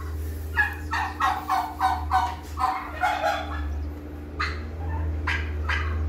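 Domestic turkeys roosting in the barn rafters calling: a quick run of rattling notes, about four a second, lasting about three seconds, then two shorter calls near the end.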